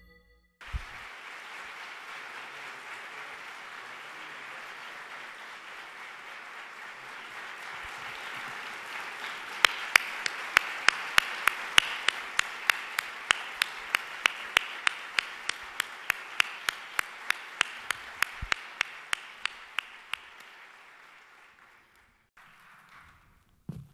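An audience applauding, with one person's louder claps close to the microphone. These come evenly, about three a second, from about ten seconds in, and the applause dies away near the end.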